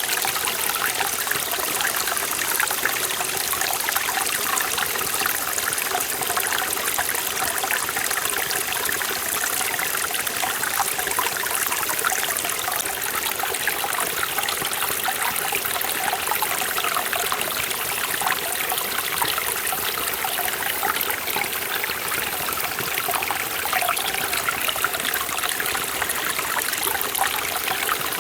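Forest valley stream flowing over rocks: steady, even rush of water with bubbling and trickling, no change in level.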